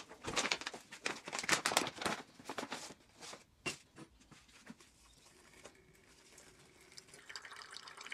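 Packaging crinkling and rustling, with small clicks and taps, for about the first three seconds. After that it goes quiet except for occasional small knocks and a faint steady hum.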